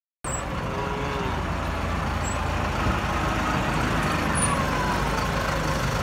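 Diesel engine of a large Euclid off-highway dump truck running steadily at a work site, starting abruptly about a quarter second in.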